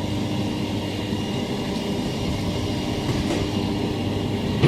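Wheelchair wheels rolling over a rough lane while going up a bank: a steady rumble and clatter with a faint steady whine, ending with a sharp click.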